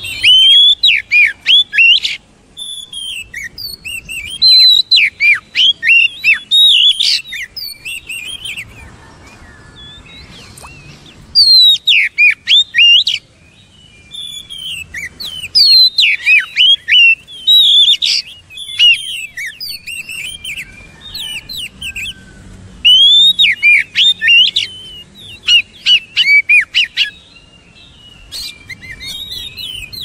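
Oriental magpie-robin singing: loud phrases of quick, varied whistles and chirps, delivered in bouts of a few seconds with short pauses between them.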